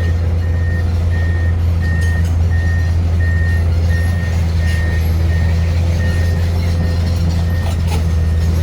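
Komatsu PC210 excavator's diesel engine running steadily, with its travel alarm beeping at an even pace of a little under two beeps a second.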